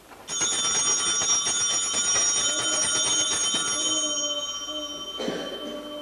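Altar bells shaken in a rapid peal at the elevation of the host, signalling the consecration. The ringing starts sharply, holds for about four seconds and then dies away.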